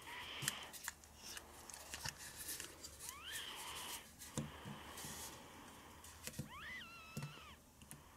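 Small plastic toy figures clicking and tapping as they are handled and set against a plastic toy kitchen set. There are two short, high, squeaky cries that rise and fall, one about three seconds in and one near the end.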